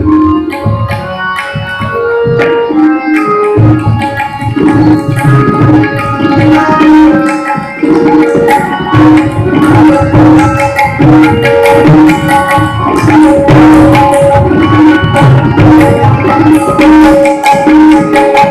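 Tabla solo in teentaal, fast dense strokes on the dayan and bayan, over a harmonium playing the repeating lehra melody. The deep bass strokes of the bayan come in about four seconds in.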